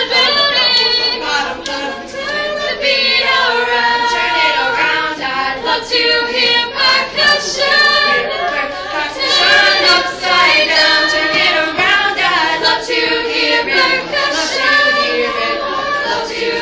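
A youth choir of girls and young children singing together.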